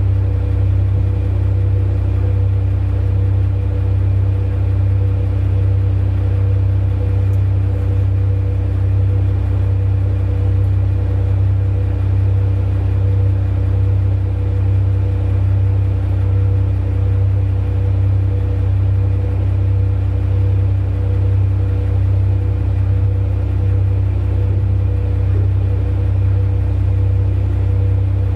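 Heavy diesel engine of large mining machinery running steadily, a deep, even drone that holds without change.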